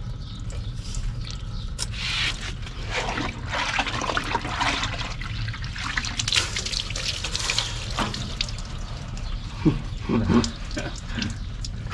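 Water trickling and splashing as it is poured, used to cool the part so that the rubber and plastic inside don't burn in the brazing heat.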